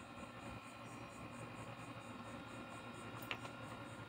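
Faint steady background hiss with a soft short click about three seconds in.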